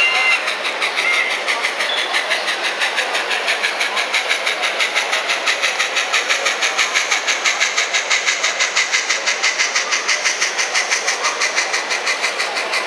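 Bachmann N-scale K4 steam locomotive's DCC sound decoder playing an even, rapid run of steam chuffs as the model runs. A two-tone whistle cuts off just at the start.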